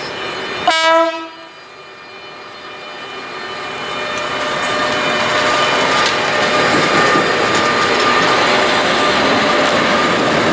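A train horn gives one short blast about a second in. Then the rush of a passing train builds over the next few seconds and holds steady, with wheels running on the rails.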